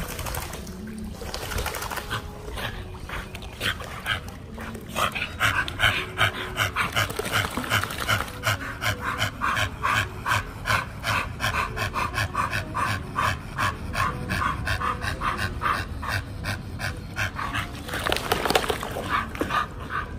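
A pit bull panting rapidly in an even rhythm, about three breaths a second, strongest from about five seconds in until near the end.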